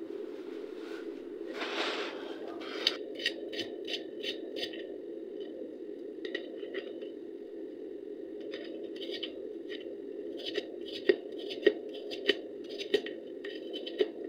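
Raw peeled potato drawn again and again across the slicing blade of a handheld plastic grater, each stroke a short crisp scrape as a thin chip comes off. The strokes come in quick runs with brief pauses and a few sharper clicks near the end, over a steady low hum.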